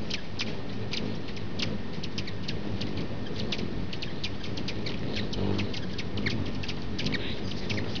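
Small birds chipping and squeaking rapidly, several short high calls a second, over a low steady rumble.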